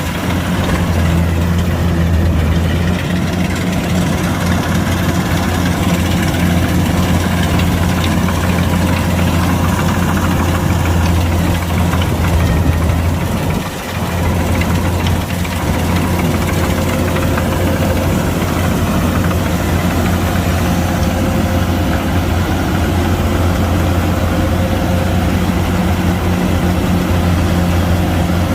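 Kubota DC105X combine harvester's diesel engine running steadily with a constant low drone, briefly easing off about halfway through.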